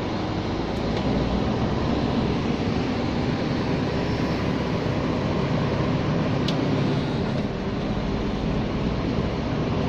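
Scania G460 lorry's diesel engine running steadily with road noise, heard from inside the cab while the truck drives. A single faint click about six and a half seconds in.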